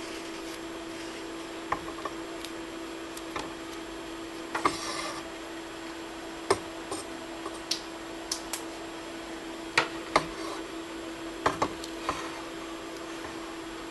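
Handling noise of wrapping electrical tape around wire connections: scattered clicks and light taps, with a brief rasping stretch about five seconds in. A steady low hum runs underneath.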